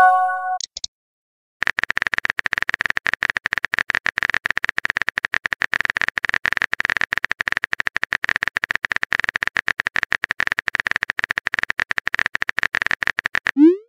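Chat-app sound effects: a short chime as a message pops in, a pause, then a long run of rapid keyboard-typing clicks. A quick rising whoosh near the end signals the next message being sent.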